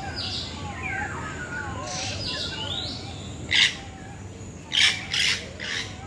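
Several birds calling: thin whistled notes sliding up and down throughout, then a handful of short, harsh, hissy squawks, the loudest about three and a half and five seconds in.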